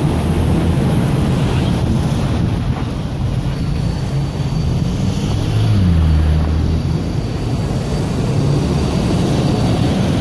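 City street traffic noise: a steady low engine rumble with road noise, swelling with a short drop in pitch about six seconds in.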